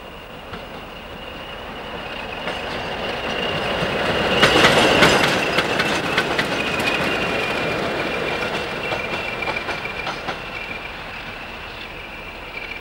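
A set of four English Electric Class 20 diesel locomotives passing at speed, their engines and a steady high whistle swelling to a peak about five seconds in and then fading. The whistle drops slightly in pitch as they go by. Wheels click over the rail joints while the locomotives are closest.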